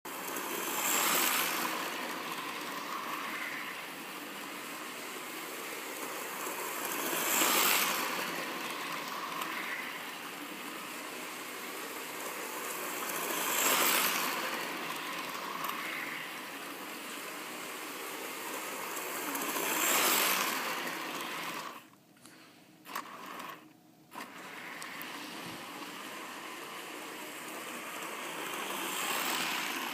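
Model train running around its track, the small electric motor and wheels on the rails whirring steadily and swelling each time it comes round, about every six seconds. The sound briefly cuts out twice about two-thirds of the way through.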